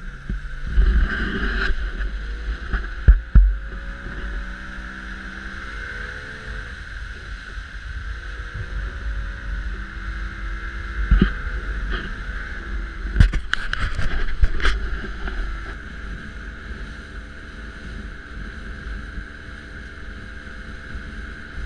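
Small open boat under way with its motor running: the engine note wavers up and down at first, then settles into a steady drone, over a rumble of wind on the microphone. A few sharp knocks sound about three seconds in and again about two-thirds of the way through.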